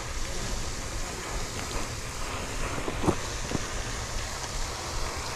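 Steady rushing noise of wind buffeting the microphone.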